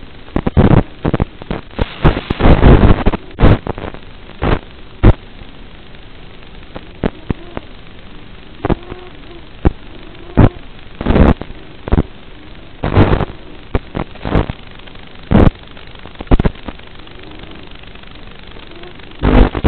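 Steady hiss broken by loud, irregular crackling pops: static on the audio of an FPV racing drone's analog video feed.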